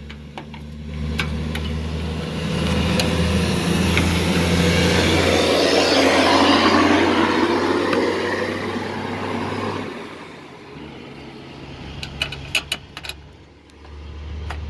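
A vehicle driving past, swelling up and fading away over about nine seconds, followed by a few sharp clicks near the end.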